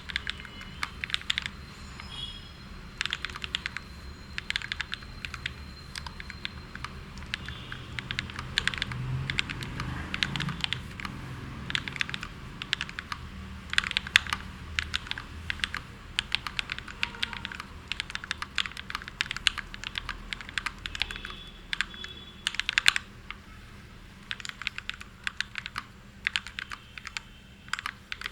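Typing on a mechanical keyboard with Akko CS Matcha Green switches: a steady run of quick, irregular key clacks, with a few busier flurries.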